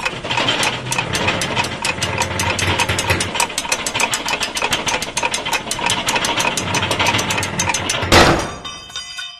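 Intro sound effect of turning gears, a rapid ratcheting click of about six clicks a second over a low mechanical rumble. About eight seconds in it ends in a loud hit, followed by a fading ringing chord.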